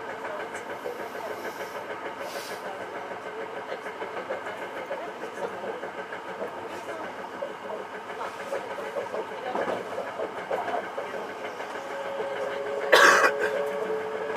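Hankyu 9300 series electric train running along the track, a steady rumble of wheels and running gear. A steady whine comes in near the end, and a short, loud burst of noise about a second later.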